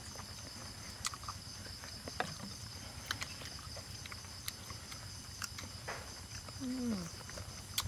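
Small clicks of chopsticks and bowls while eating, over a steady high-pitched chirring of insects. About six and a half seconds in, a short falling 'mmm' hum from one of the eaters.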